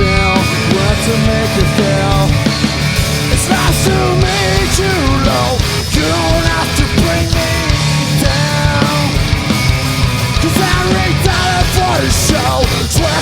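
Live rock band playing loud: drums, bass and guitars, with a pitched lead line bending up and down over them.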